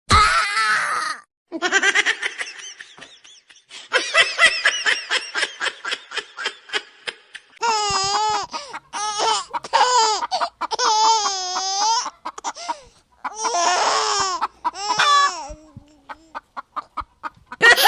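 A string of short laughter sound clips, one after another with brief gaps: some in quick rhythmic pulses, others with wavering pitch.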